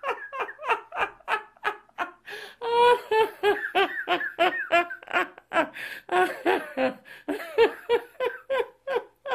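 A man laughing hard and without pause: a long unbroken string of quick, high-pitched 'ha ha ha' bursts, about three to four a second.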